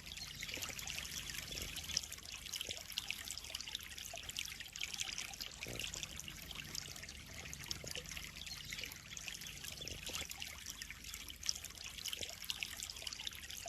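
Water trickling and splashing steadily into a koi pond, a continuous bright, crackly splashing.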